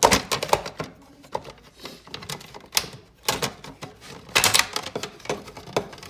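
Plastic side cover of a Keurig Mini coffee maker being pulled off by hand: a rapid run of plastic clicks, snaps and rattles as its clips let go. The loudest snaps come right at the start and again about four and a half seconds in.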